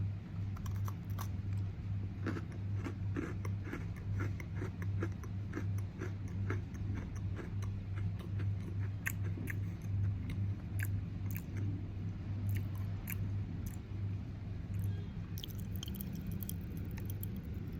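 Chewing an Oreo Space Dunks cookie with Pop Rocks in its marshmallow cream: many small sharp crackles and pops from the popping candy, scattered irregularly over a steady low hum.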